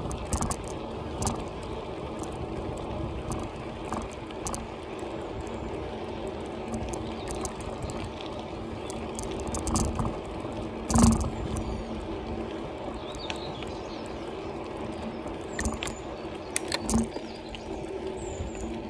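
Bicycle being ridden along a tarmac path: steady tyre and riding noise with rattles and knocks from the bike, the loudest jolt about eleven seconds in and another a little before the end.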